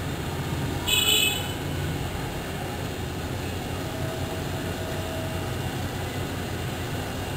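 Laser cutter running while it cuts 3 mm MDF: a steady machine hum and rush of air, with a brief high-pitched whine of several tones about a second in.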